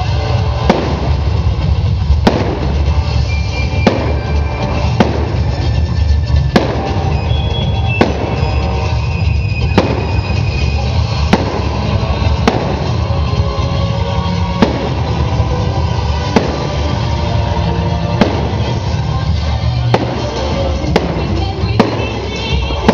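Fireworks bursting overhead, sharp bangs roughly once a second, with music playing throughout underneath.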